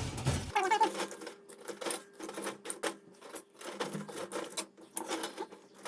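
Wood fire in a fireplace crackling, with irregular sharp pops and snaps.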